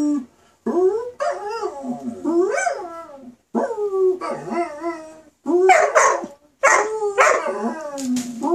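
Four-month-old German Shepherd–Siberian Husky mix puppy howling: a string of wavering howls that rise and fall in pitch, broken by short pauses, with a few rougher, louder ones about halfway through.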